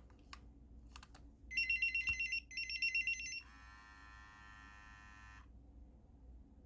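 Nixxo Tutti pager powering up as its battery goes in: a few small plastic clicks, then two fast, high warbling beep bursts of about a second each, then a lower steady tone for about two seconds. The power-on alert shows the old pager still works.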